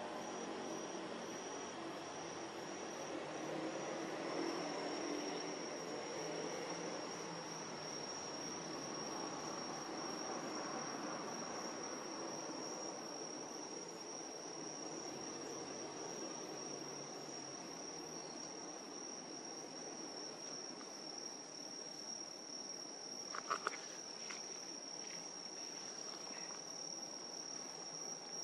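Crickets chirring in a steady, high-pitched trill. A low distant rumble fades away over the first ten seconds or so, and a few brief clicks come a few seconds before the end.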